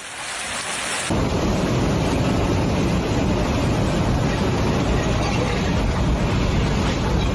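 Thunderstorm: heavy rain hissing, then from about a second in a loud, steady low rumble of rolling thunder over the pouring rain.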